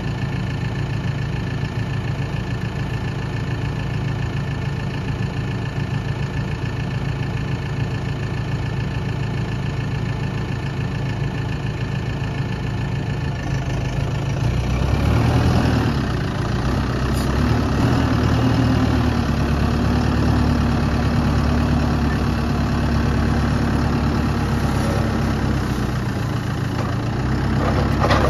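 Tractor's diesel engine idling steadily, then revving up about halfway through and holding the higher speed as the front loader digs into and lifts the compost pile.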